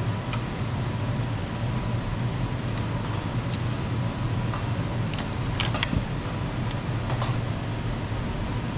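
Hand tools on metal clinking a few times, clustered about four and a half to seven and a half seconds in, over a steady low machine hum.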